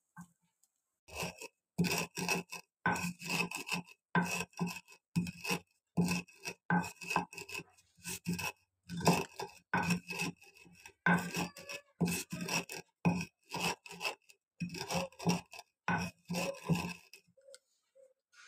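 Wooden rolling pin rolled back and forth over a round board, crushing roasted spice into powder: quick scraping, crunching strokes, a couple a second, that stop shortly before the end.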